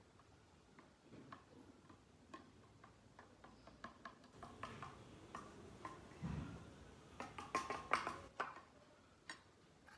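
A steel spoon clinking and scraping against a stainless steel bowl while mango pulp is stirred, the taps coming quicker and louder in the second half.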